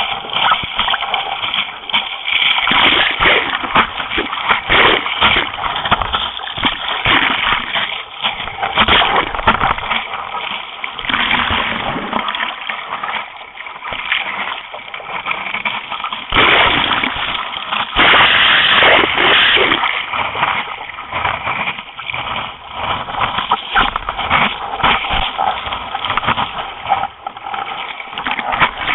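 Seawater splashing and sloshing close against a surf race board as the paddler strokes through chop, with constant spray hitting the board-mounted camera. A little past halfway there is a louder, longer rush of white water.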